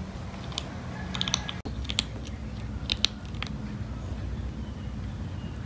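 Kitten crunching dry kibble: short sharp crunches in small clusters with pauses between, over a steady low background hum.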